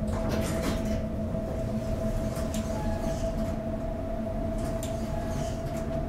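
Elevator car travelling: a steady low rumble with a constant hum and a few faint rattling clicks.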